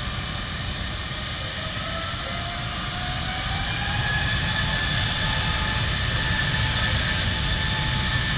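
Distant Airbus A380 jet engines, four Rolls-Royce Trent 900 turbofans, running with a whine that slowly rises in pitch over a low rumble. The sound grows louder about halfway through as power comes up for departure.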